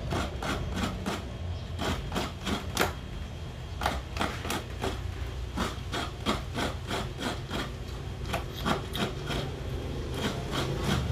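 Coconut half being scraped against the toothed metal blade of a traditional Filipino wooden coconut scraper: a steady run of short rasping strokes, about three a second, as the meat is grated out.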